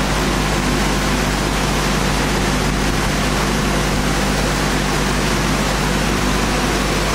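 Sanding machine for profiling wooden board cores running steadily: an even, loud rushing noise over a low steady hum.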